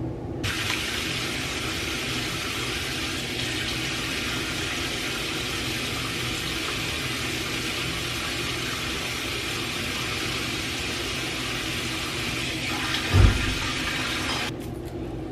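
Water running steadily in a bathroom, a continuous hissing rush that cuts in and cuts off abruptly, with a single dull thump near the end.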